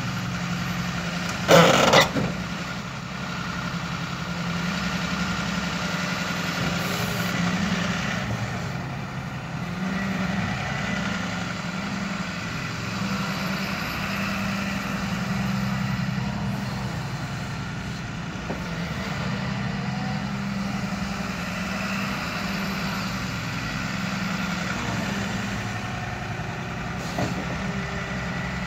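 Hyundai excavator's diesel engine running steadily, with a short loud noise lasting about half a second roughly two seconds in.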